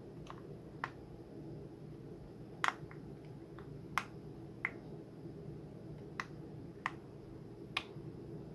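Small sharp clicks, about nine at irregular spacing, from a small screwdriver working at the set screw in a handheld microphone's metal body, over a steady low hum.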